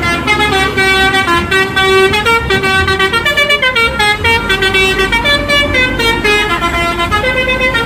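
Bus telolet horn, a multi-tone musical horn, playing a quick tune: several pitches sound together and step up and down every fraction of a second.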